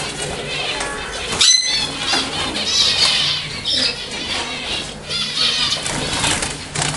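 A flock of caged zebra finches calling together: a dense, continuous chatter of short, high chirps and calls, with one louder call about one and a half seconds in.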